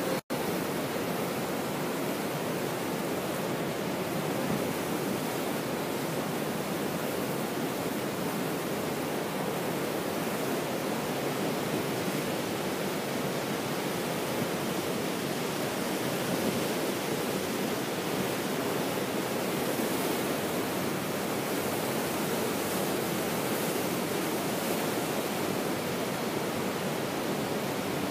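Steady, unbroken roar of rushing water, with no distinct events.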